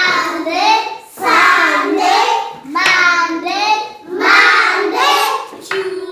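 Young children's voices chanting the days of the week in a sing-song, one day name at a time, each about a second long with short breaks between.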